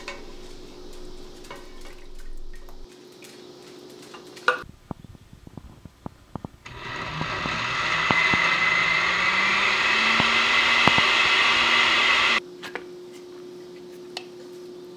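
Countertop blender puréeing cooked butternut squash: the motor starts about seven seconds in and runs loudly for about six seconds, its pitch rising slowly as it spins up, then cuts off suddenly. Before it there are a few light knocks.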